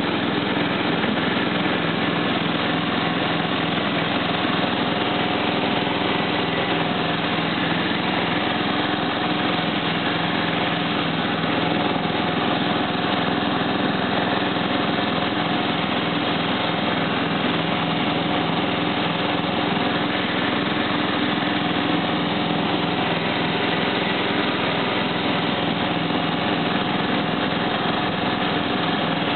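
Simplicity 4211 lawn tractor's engine running steadily at an even speed while the tractor drives across grass, heard from the driver's seat.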